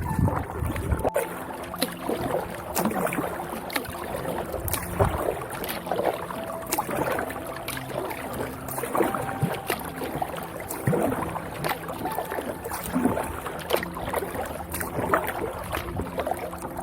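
Kayak paddle dipping and splashing in calm water, with irregular splashes and drips against the hull of a sit-on kayak.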